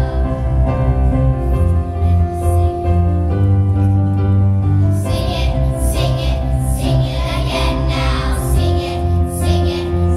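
Children's choir singing a Christmas song over an instrumental accompaniment with a steady bass line. The children's voices come in stronger about halfway through.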